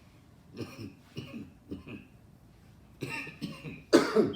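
A man coughing in a series of short coughs that build to a louder, harder cough near the end, brought on by a hit of harsh blunt smoke.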